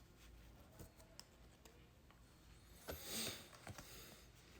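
Faint handling of small oracle cards: a few light clicks, then a brief soft swish about three seconds in.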